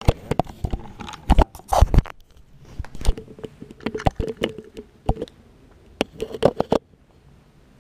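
Irregular crunching footsteps and scrapes on a debris-strewn floor, with sharp knocks scattered throughout and the loudest cluster in the first two seconds.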